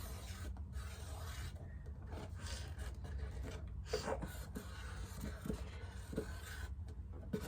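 Sharpie marker scratching and rubbing over a cardboard shoebox in short, irregular strokes as a nose is drawn and coloured in, over a low steady hum.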